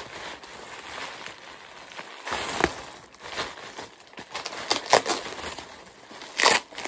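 Thin plastic bags crinkling and rustling as they are handled and pulled open, with sharper crackles about two and a half seconds in, near five seconds and again near the end.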